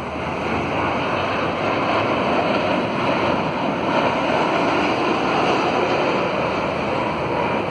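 Boeing 787-8 airliner passing low overhead on landing approach, gear down: a broad, rushing jet-engine noise that swells over the first few seconds and stays loud.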